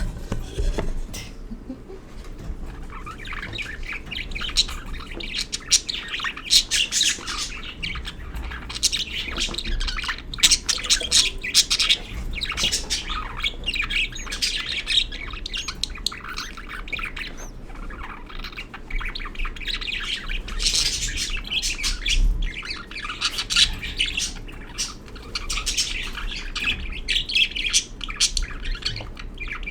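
Budgerigars chirping and chattering continuously in quick, high-pitched calls.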